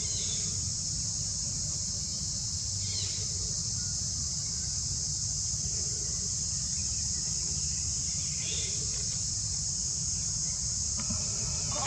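Steady high-pitched drone of an insect chorus, with a few faint short calls over it and a louder animal call starting near the end.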